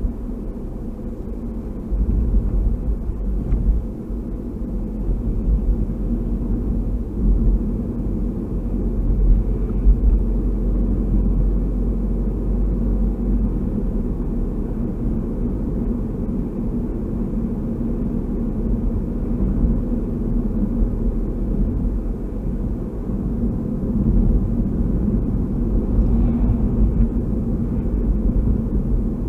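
Steady low rumble of tyre, road and engine noise inside a moving car's cabin, picked up by a dash cam's built-in microphone. It gets louder about two seconds in.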